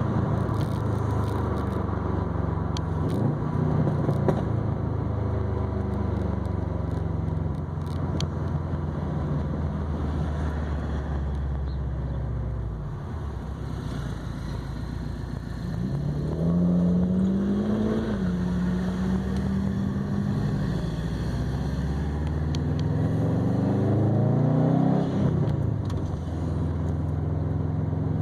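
Exhaust of a 2020 Subaru WRX STI's turbocharged 2.5-litre flat-four, with an ETS non-resonated catback and a Grimmspeed catted downpipe, running while cruising. It runs steadily, eases off a little before halfway, then climbs in revs and holds. It climbs again and the revs drop sharply near the end.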